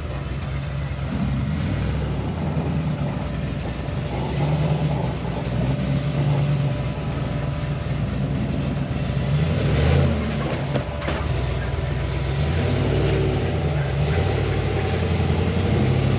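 Off-road truck's engine running under load while crawling up an obstacle, its pitch rising and falling with the throttle.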